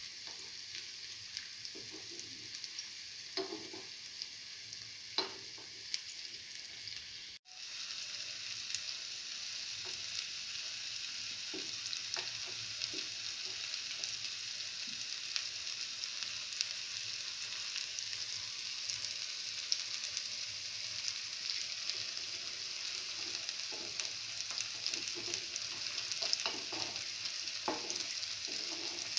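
Red lentil and chickpea flour fritters sizzling and crackling in hot oil in the cups of a cavity pan, with a few light knocks. The sound cuts out briefly about seven seconds in and comes back slightly louder.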